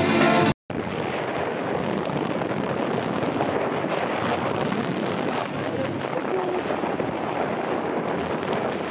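Music stops abruptly within the first second, then a steady rushing noise of wind buffeting the microphone, with no clear engine tone in it.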